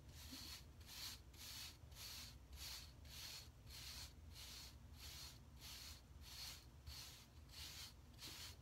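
Wave brush with firm bristles being stroked repeatedly over short hair: faint, regular scratchy swishes, about two to three strokes a second.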